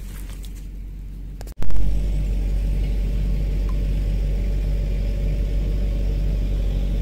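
A steady low rumble that starts abruptly about one and a half seconds in, after a quieter stretch with a few faint clicks.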